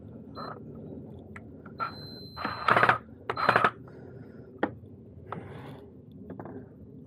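Hand-tool work tightening the hose clamp on a cold air intake tube: scattered metallic clicks and two short, loud rattling bursts, about two and a half and three and a half seconds in.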